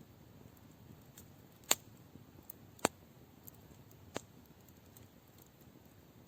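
Wood fire crackling: scattered sharp pops of burning wood, three louder ones a little over a second apart, over a faint low hiss.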